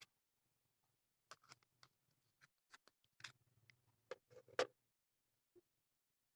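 Light clicks and taps from handling a stylus pen and its packaging, a dozen or so irregular ones, the loudest about four and a half seconds in.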